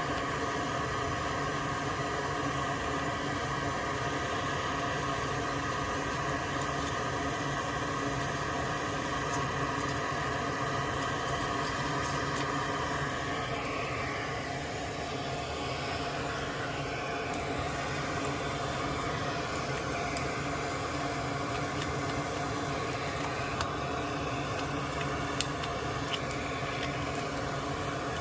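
Steady whirring hum of a small electric fan or blower. A higher whine in it fades out about halfway through, leaving the lower hum running.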